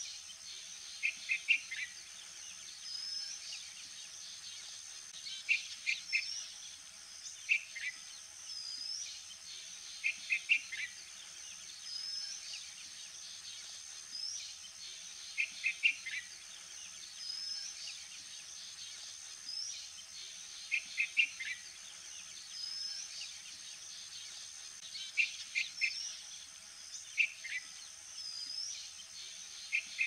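Small birds calling in a regular repeating pattern: a short upward-flicking chirp every couple of seconds, and every few seconds a quick three-note phrase ending in a falling note. A steady high-pitched drone sits under them.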